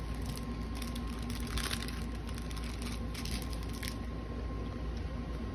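Faint crinkling of a plastic toy bag being handled, a few short bursts in the first four seconds, over a steady low hum.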